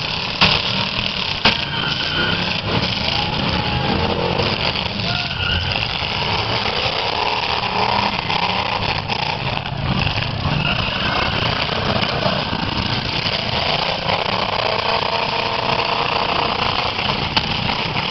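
V8 demolition-derby cars running hard and ramming each other, with a large crowd's voices over them; two sharp crashes about half a second and a second and a half in.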